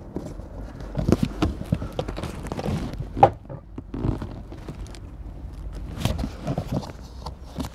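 Irregular clicks, taps and knocks with rustling, from hands handling small dashboard bolts, a socket tool and cardboard.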